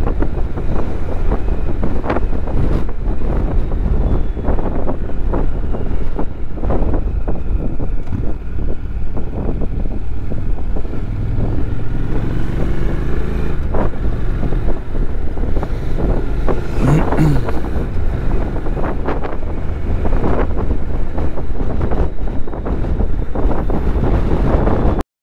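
Wind buffeting the microphone of a Honda NC750X motorcycle under way, with the bike's parallel-twin engine running beneath it; the engine note climbs about halfway through. A brief sharper sound with a rising-and-falling tone comes a few seconds later, and the sound cuts off just before the end.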